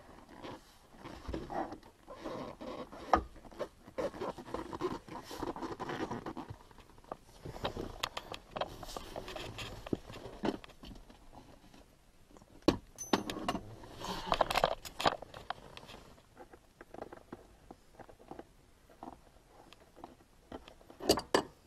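Hands working on a car's trunk trim and fittings: irregular rustling and scraping with scattered sharp clicks and knocks. The loudest clicks come about three seconds in, in a cluster a little past halfway, and near the end.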